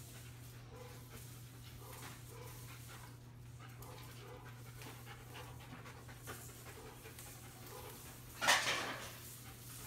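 Scent-detection dog panting steadily as it searches, over a steady low hum. About eight and a half seconds in comes a brief, louder rushing noise.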